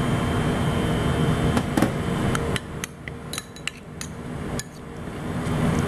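A metal spoon clinking and tapping against a dish in irregular light knocks, handling chili bean sauce and shrimp. A steady background noise drops away about halfway through.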